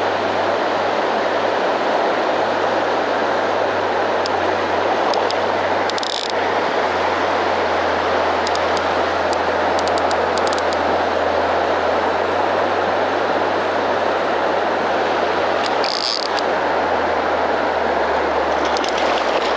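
Steady rushing of a wide river's current flowing past. A few faint short clicks come through it, with two brief brighter splashing or scraping sounds about six seconds in and again near sixteen seconds.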